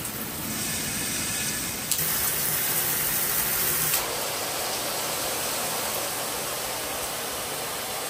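Water spraying from a 7-position handheld shower sprayer, a steady hiss of streaming water. There is a click about two seconds in, and the spray sound changes character at about two and again at about four seconds.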